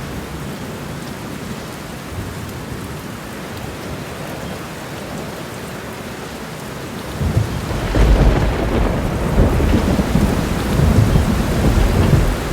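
Steady rain, joined about seven seconds in by a long, loud rumble of thunder that swells and rolls on for several seconds.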